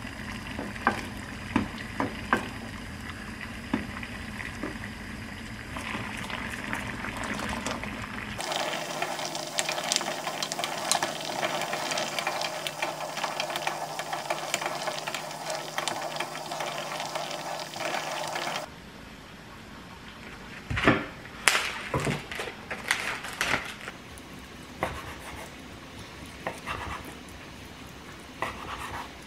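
Pot of water at a rolling boil, with a wooden ladle clicking against the pot as it lowers eggs in and stirs them; the bubbling gets louder and hissier partway through. In the last third a chef's knife cuts through raw pork on a wooden board, with a few sharp knocks and scraping strokes.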